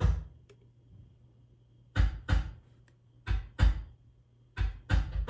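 Drum hits from a Roland electronic drum kit, played in pairs about a third of a second apart with pauses between, then a quicker run of hits starting near the end.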